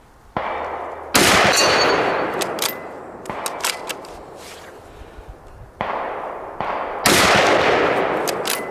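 Two loud shots from a Steyr Scout bolt-action rifle in .308 Winchester, about six seconds apart. Each rolls away in a long echo, with sharp metallic clicks between them as the bolt is worked.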